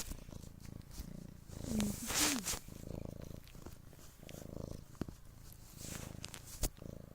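Domestic cat purring close to the microphone, the purr coming in phrases of about a second with each breath. A brief breathy sound about two seconds in, and a few soft knocks, the loudest near the end.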